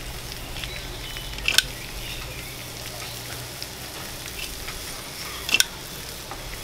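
Hash browns, bacon and pancake batter sizzling steadily on a hot Blackstone flat-top griddle. Two sharp clicks cut through, about a second and a half in and again near the end.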